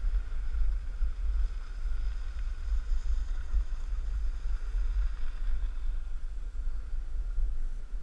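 Wind buffeting the microphone of a camera moving at speed down a groomed ski run: a steady, gusting low rumble.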